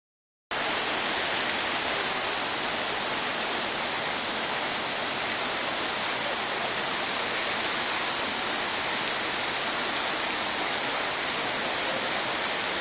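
Steady rushing water, an even unbroken hiss that starts abruptly about half a second in.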